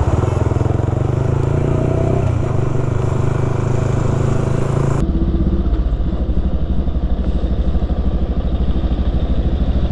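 Sports motorcycle with an aftermarket exhaust running while ridden at low speed. The engine note is steady at first, then drops abruptly to a lower-pitched, evenly pulsing note about five seconds in.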